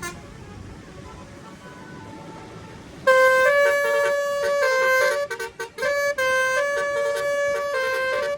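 Basuri-style telolet horn on a car playing a melody: loud, bright air-horn notes stepping up and down in pitch, starting suddenly about three seconds in, with a couple of short breaks.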